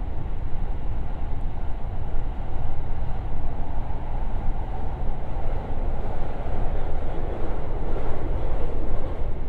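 JR West 521 series electric train running through a tunnel, heard from inside the passenger car: a steady, loud low rumble of the running gear on the rails.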